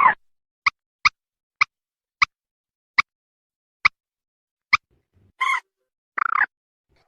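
Mandar sawah rail calling in a lure recording: a string of short, sharp notes about every half to one second, then two longer, harsher calls near the end.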